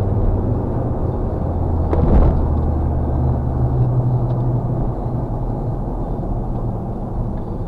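Road and engine noise inside a moving car, a steady low rumble with a low hum that changes pitch after a brief thump about two seconds in.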